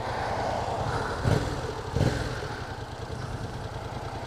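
Yamaha FZ-07's parallel-twin engine idling with a steady low rumble, broken by two brief, louder low thumps a little over a second in, about two-thirds of a second apart.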